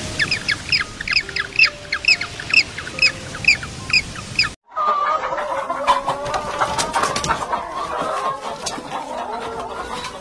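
A bird's short, high chirps repeated three or four a second. After a sudden cut about four and a half seconds in, domestic hens cluck.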